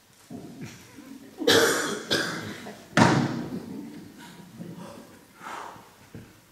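Thumps of a performer climbing up onto a small wooden stool on a wooden stage, the sharpest about three seconds in, with breathy noises of effort.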